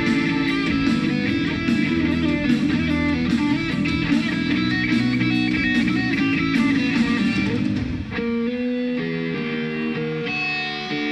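Live rock band playing a boogie: electric guitar riffing over drums with cymbal hits. About eight seconds in the drums drop out, leaving the electric guitar playing on its own.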